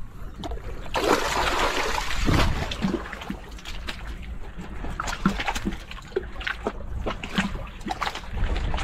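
Mesh keep net full of fish hauled out of a rock pool: a loud splash and rush of water as it comes up about a second in, then water streaming and dripping from the net with scattered small splashes.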